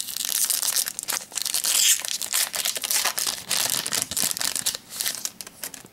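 Foil trading-card pack wrapper being torn open and crinkled by hand: a dense run of crackling, tearing sounds that dies down near the end.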